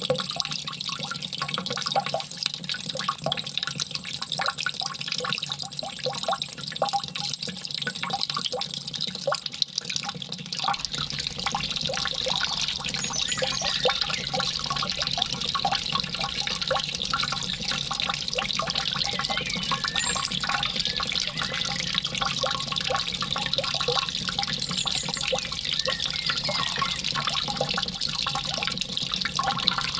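Water trickling and splashing steadily, full of small drips and plops, with a few faint high chirps about halfway through and again near the end.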